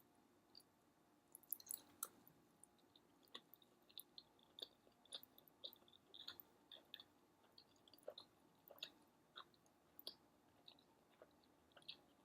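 Faint chewing of a soft onion bagel with scrambled eggs: irregular small wet mouth clicks and smacks, several a second.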